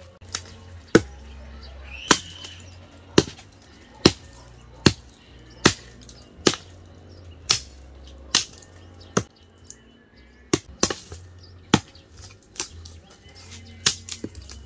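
Large machete (itak) chopping into a wooden stump: about seventeen sharp blows at roughly one a second.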